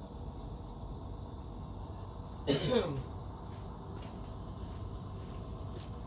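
A man coughs once, short and loud, about two and a half seconds in, over a faint steady low hum.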